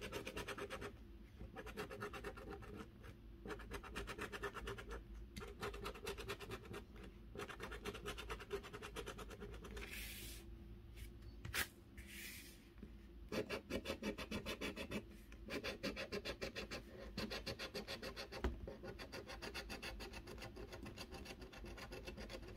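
A coin scratching the coating off a scratch-off lottery ticket in rapid back-and-forth strokes, in runs broken by short pauses. One sharp click sounds near the middle.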